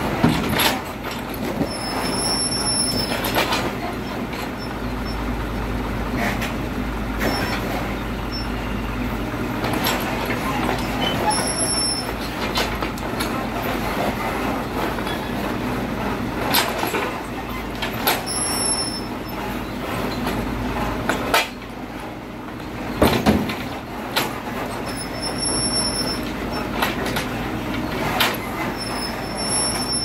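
Mini excavator's engine running steadily with its hydraulics working, as its demolition grapple drops and knocks broken debris into a dump truck's steel bed: repeated clanks and thuds, the loudest about three-quarters of the way through, with several short high squeals.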